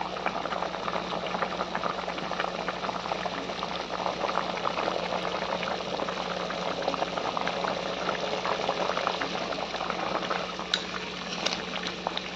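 Chicken pieces boiling in turmeric water in a cooking pot, bubbling steadily: the chicken is cooked through.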